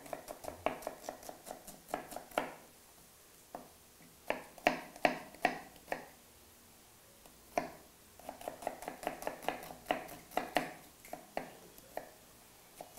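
Kitchen knife chopping onion on a cutting board: runs of quick, sharp taps, several a second, broken by short pauses.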